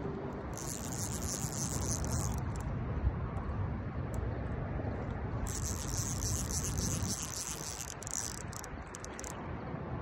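Night insects trilling in two long high-pitched bouts, one starting about half a second in and lasting about two seconds, the other running from about five and a half to eight seconds, over a steady low rumble.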